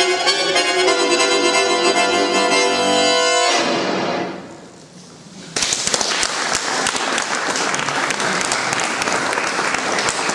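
Bayan (Russian button accordion) playing the close of a piece, a held chord that cuts off about three and a half seconds in and dies away in the hall's echo. About two seconds later the audience breaks into steady applause.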